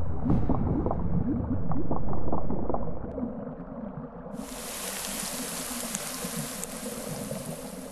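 Underwater sound-effect ambience of low bubbling and gurgling. About four seconds in, a steady bright hiss joins it.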